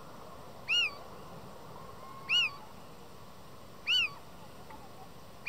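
Male little owl giving its mewing breeding-season call: three short, rising-then-falling mews about a second and a half apart. Fainter, lower calls sound between them.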